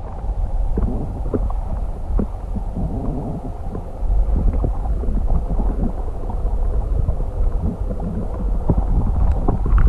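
Low rumbling microphone noise with scattered small knocks and crackles, typical of wind buffeting and handling of a phone or camera. It gets louder about four seconds in.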